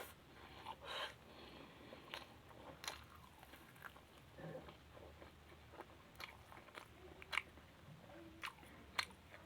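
Someone chewing and biting food with the mouth close to the microphone: quiet chewing broken by about a dozen short, sharp wet clicks and smacks at irregular intervals.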